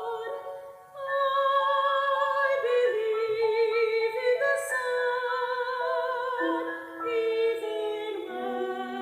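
Offertory music: a singer holds long notes with vibrato over steady sustained notes, with a short breath between phrases about a second in.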